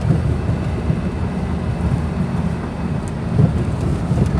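Steady road and engine noise inside a moving car's cabin, heavy in the low end, with a couple of small bumps.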